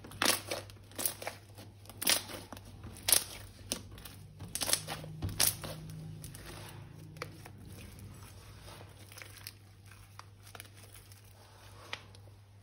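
Crinkling and crackling from handling slime-making materials, in a quick run of sharp bursts over the first six seconds or so, then only faint scattered crackles.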